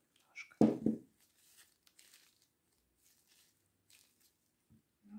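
Disposable plastic gloves rustling and crinkling as hands roll a moist clay mass into balls, with two dull thumps close together about half a second in.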